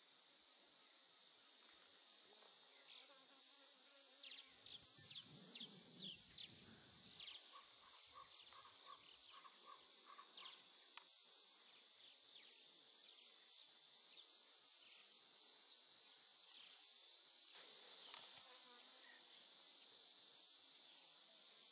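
Faint evening chorus of insects, a steady high shrill, with a run of short chirps a few seconds in and again near the end.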